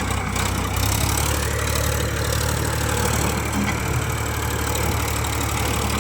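ACE tractor's diesel engine running steadily with a low, even drone.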